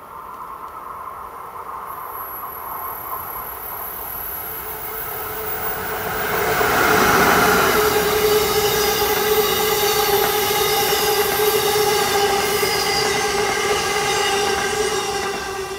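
Amtrak Northeast Regional train passing at speed. Its noise builds as it approaches and peaks as the locomotive goes by about seven seconds in. The Amfleet coaches then roll past with a steady, high ringing squeal from the wheels, which fades as the train clears near the end.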